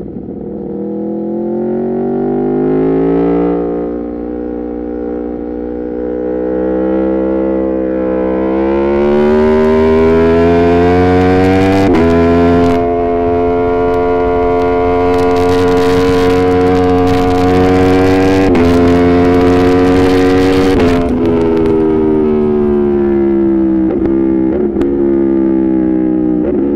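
Aprilia Tuono V4 Factory's V4 engine through an Arrow GP2 exhaust with the dB killer removed, pulling hard with the revs climbing and stepping at gear changes, then holding high revs with wind noise. About twenty seconds in it shuts off and the revs fall away, with two quick blips near the end as it downshifts.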